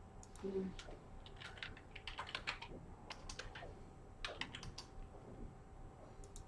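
Typing on a computer keyboard: irregular runs of key clicks as data is entered into a form.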